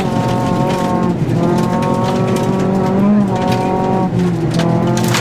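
Rally car engine heard from inside the cabin, pulling hard at high revs. The revs dip briefly about a second in and again near four seconds in, as at gear changes.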